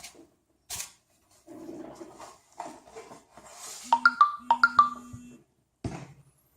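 A smartphone's short electronic chime, a quick run of bright pitched notes about four seconds in, with a few sharp taps or clicks around it.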